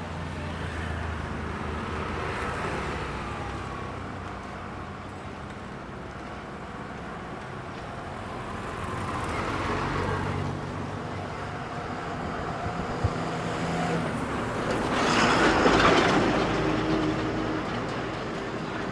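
Road traffic: motor vehicles running and passing by, one passing close and loudest about fifteen seconds in.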